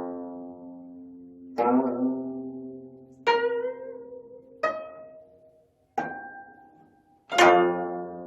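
25-string gayageum plucked in separate chords about every second and a half, five in all, each struck sharply and left to ring and die away; the strings are pushed to bend the pitch on the chord in the middle.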